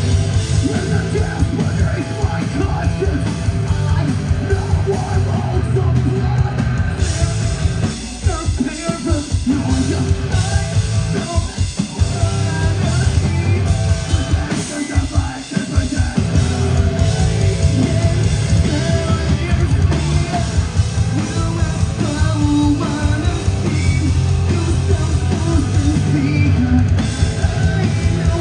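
Heavy rock band playing live and loud: drum kit with rapid, dense drum hits, electric guitar and screamed and sung vocals. The music briefly drops back about a third of the way in and again near the middle.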